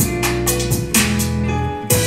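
Music with drums played through a Monster Adventurer Force Bluetooth speaker and picked up by a microphone in the room.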